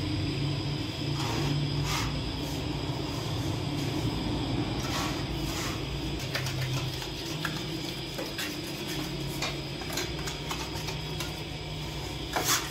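Steady hum of bakery machinery with scattered clicks and knocks, and one louder knock near the end.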